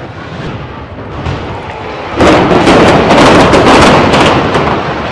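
Explosive demolition charges firing in a tower block about two seconds in: a rapid volley of sharp blasts over a heavy rumble as the building comes down, slowly fading.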